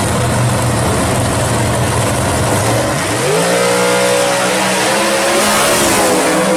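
Drag-racing V8 engines of a first-generation Camaro drag car and the car beside it, idling with a heavy, rough rumble at the starting line. About three seconds in, the engine note sweeps up and holds at high revs as a car launches down the strip.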